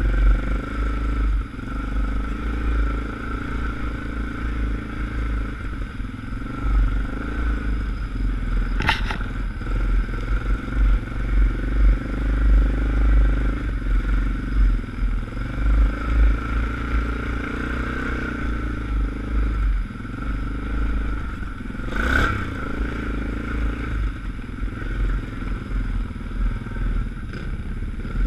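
ATV engine running steadily under way on a snowy trail, with a low rumble and rattling throughout. Two sharp knocks, about 9 seconds in and about 22 seconds in.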